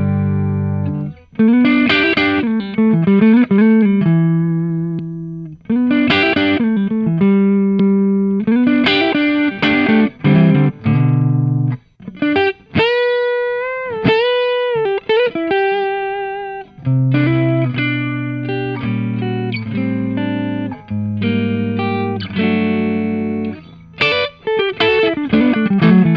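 Electric guitar with a humbucker pickup played clean through a Mr. Comando compressor pedal set for more sustain, into a Fender Deluxe Reverb tube amp: ringing chords and single-note phrases, with a few bent, wavering notes about halfway through.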